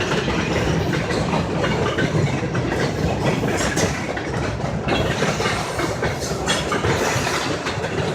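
Freight train cars rolling past, wheels clattering over the rail joints in a steady rush of noise.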